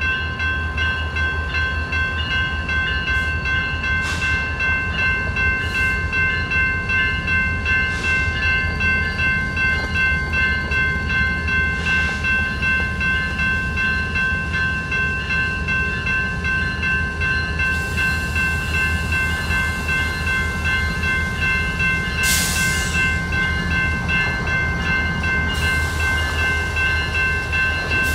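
Railroad grade-crossing bell ringing over and over while a BNSF freight train's diesel locomotives approach at low speed, their engines rumbling low underneath. About 22 seconds in there is a short hiss.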